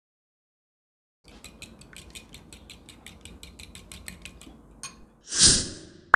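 Metal fork beating eggs in a glass bowl, clinking against the glass about six times a second for about three seconds. Near the end there is one brief, louder rush of noise.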